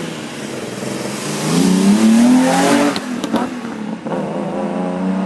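Sports car engine blipped, its pitch rising for about a second and a half and then dropping back to a steady idle as the cars move off slowly, with a couple of short clicks in between.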